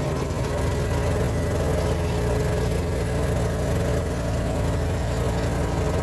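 Engine of a small open farm vehicle running steadily while driving along a dirt track, a low even hum with a steady drone above it.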